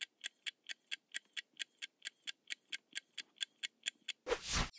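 Countdown-timer ticking sound effect: rapid, even clock ticks at about four a second, ending in a brief louder rushing sound as the time runs out.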